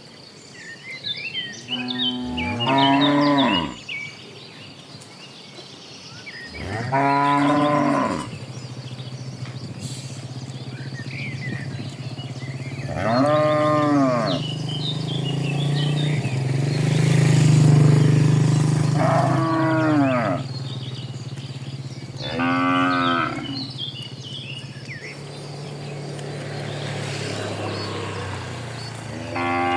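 A herd of cattle mooing: about six loud calls a few seconds apart, layered over a long, low, drawn-out moo from other animals.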